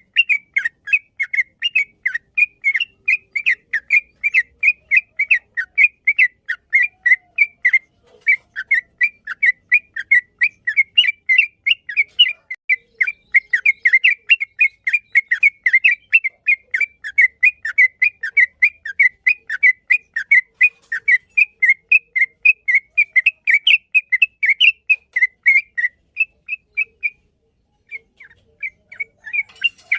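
Yellow-vented bulbul (trucukan) singing a long, fast run of short chirping notes, about three or four a second, with a brief pause near the end.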